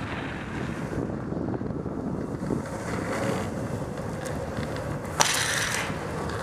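Longboard wheels rolling over pavement with a steady rumble, wind buffeting the microphone, and a short sharp hiss about five seconds in.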